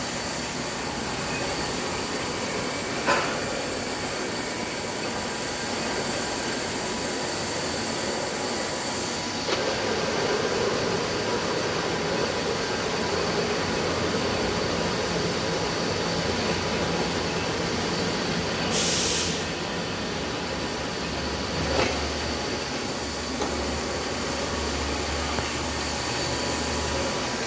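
Lathe running while a V-shaped threading tool cuts a thread on a stud. A steady mechanical running noise with faint whining tones grows somewhat fuller about a third of the way in. A brief hiss comes about two-thirds of the way through, and a few light knocks.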